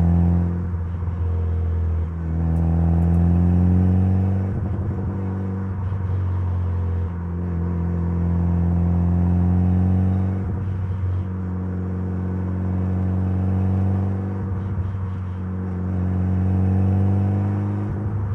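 Mitsubishi Lancer Evolution's turbocharged 4G63 2.0-litre inline-four under way. Its note climbs steadily in pitch, then drops back each time the driver lifts or shifts, about five times over the stretch.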